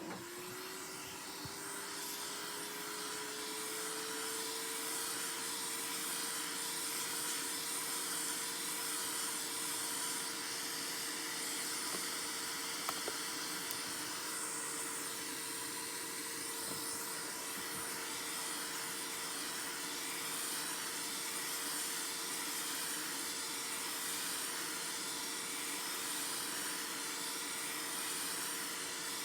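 Hot air gun running with a steady hiss and a fan whine that rises over the first few seconds as it spins up, then holds steady, as used to soften display adhesive during a phone screen replacement. A couple of faint clicks come about halfway through.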